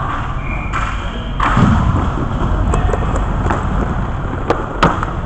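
Inline hockey play over steady rink noise: a heavy thump about a second and a half in, then two sharp knocks close together near the end.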